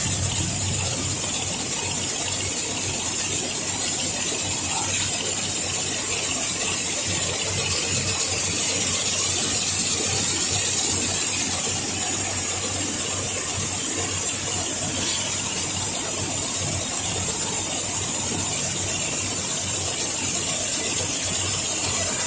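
Multi-head needle loom weaving polypropylene and polyester webbing tapes, running steadily at speed: a dense, fast mechanical chatter with a steady high-pitched hiss above it.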